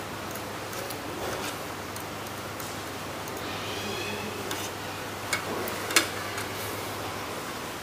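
Street-food stall ambience: steady background noise with scattered light clicks and knocks, and a sharper clack about six seconds in.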